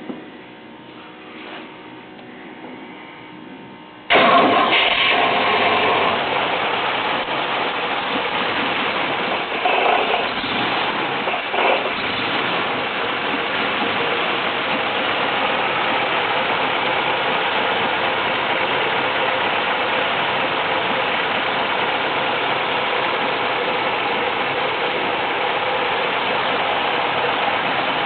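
A 1964 Oldsmobile 98's 394 V8 starting up for the first time after a valve job: it catches suddenly about four seconds in, surges briefly twice a few seconds later, then settles into steady running.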